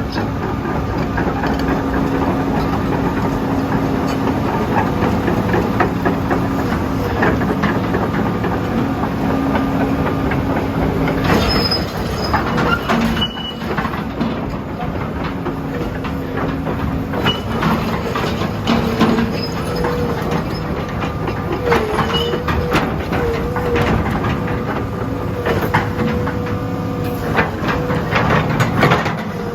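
Hitachi EX200-2 hydraulic excavator being worked, its Isuzu 6BD1 six-cylinder diesel running steadily under load with a wavering whine and repeated metallic clanks and knocks.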